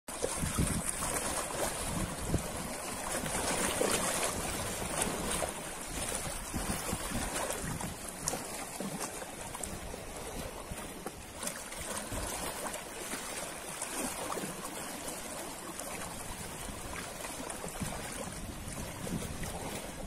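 Ocean waves rolling and washing on a shore: a steady rushing noise, a little louder over the first few seconds.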